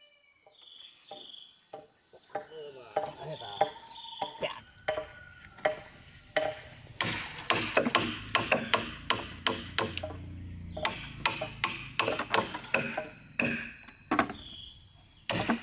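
Repeated sharp chopping strikes on wood: a few spaced blows at first, then quick runs of about two or three a second through the second half.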